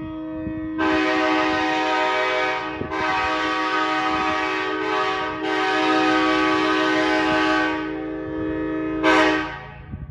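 Truck-mounted multi-chime locomotive air horn sounding. A single chime is joined about a second in by the full chord, which is held through two brief breaks and fades near the end. One short final blast follows.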